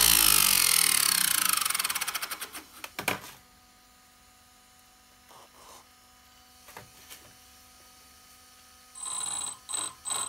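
A homemade axial-flow jet engine, spun dry by an RC car brushless motor, winds down with a falling whine that breaks into a rapid pulsing rattle and dies away about three seconds in. There are a few faint knocks from handling. About nine seconds in, the motor starts again in short, stuttering high-pitched bursts. The uploader puts the motor's vibration down to a shaft adapter that runs slightly out of true.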